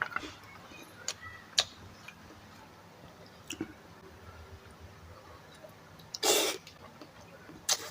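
A person eating at close range: scattered wet mouth clicks and smacks while chewing, with a short loud breathy burst about six seconds in and a shorter one near the end.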